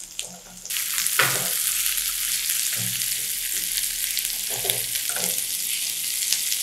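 Sliced onion sizzling in melted butter in a nonstick frying pan, a steady hiss that starts suddenly under a second in, with a few soft scrapes as a silicone spatula stirs it.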